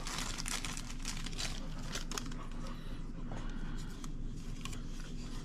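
Light clicks and crinkling of small tools and parts being handled during a tablet repair, most dense in the first second or so, over a steady low hum.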